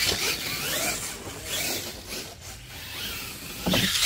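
Electric RC monster truck motor whining up and down in pitch as it is throttled on and off, with tyres scrabbling on dirt. It gets louder near the end as the truck takes off from a jump.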